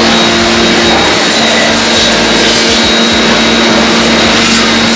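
Hyundai HPW105 portable electric pressure washer running steadily: a constant motor-and-pump hum under the loud hiss of the high-pressure water jet.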